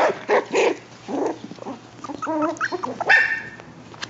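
Young puppies yipping and barking in a rapid string of short, high calls, with a wavering call about two seconds in and a higher, longer yelp about three seconds in.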